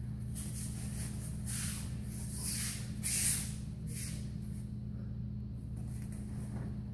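Several soft swishes of bare feet sliding over judo mats and judogi cloth moving as two judoka walk toward each other, the loudest about three seconds in, over a steady low hum.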